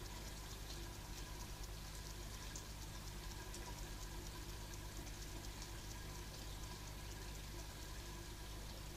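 A hedgehog scratching itself and snuffling: faint, rapid, crackly little scratches over a steady low hum.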